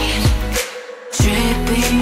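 Background pop song with a deep electronic beat; the bass and beat drop out briefly in the middle, then come back in.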